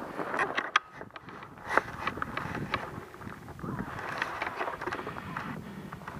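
Footsteps crunching through deep snow, irregular short crunches, with clothing and gear rustling while climbing a snowbank.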